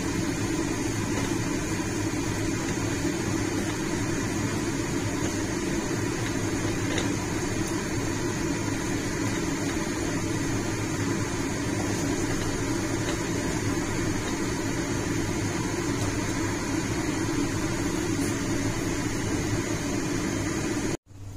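Steady whirring hum and hiss of a kitchen fan running over the stove. It cuts off suddenly near the end.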